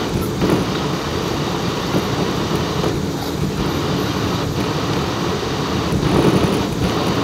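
Steady road and engine noise of a moving vehicle, heard from inside its cabin.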